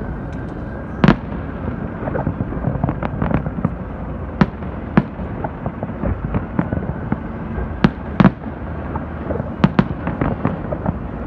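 Aerial fireworks bursting: a steady run of crackling pops, with sharp, louder bangs every second or two.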